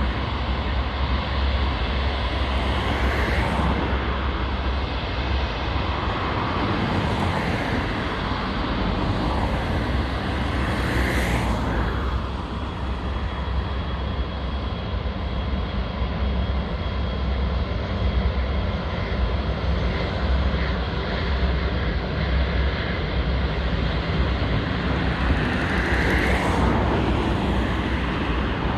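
Airbus A380's four Rolls-Royce Trent 900 turbofans running at low taxi thrust as the airliner rolls past: a steady jet rumble carrying a faint high whine, with heavy low rumble.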